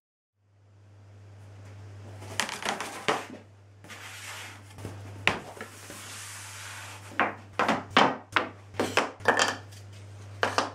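Wooden case parts, thin bent sides and solid blocks, being handled and set down on a workbench: scattered light knocks and clatters, thickest in a run of sharp knocks from about seven seconds in. A steady low hum sits underneath.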